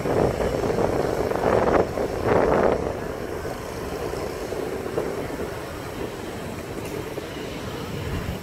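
City street traffic of motorbikes and cars, a steady rumbling noise with some wind on the microphone, louder for the first three seconds and then softer and even.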